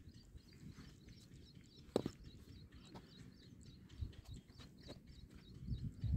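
Open-air ambience on the microphone: a low wind rumble with faint, rapid high chirps throughout. A sharp knock about two seconds in, and a few heavier thumps near the end.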